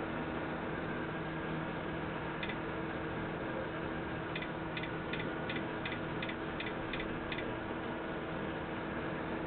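A mobile phone's keypad beeping: one short beep, then about nine quick beeps, roughly two and a half a second, as the menu highlight is stepped down a list. The beeps sit over a steady hiss and hum.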